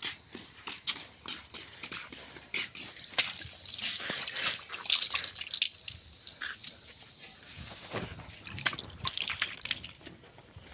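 Insects chirring steadily at a high pitch, with irregular clicks and squelchy crackles throughout, loudest in the middle and again about two-thirds of the way in.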